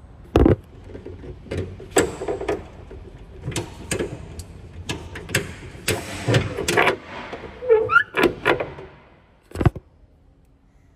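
Handling noise close to the microphone: a run of irregular knocks, clunks and rubs, the loudest about half a second in and again near the end.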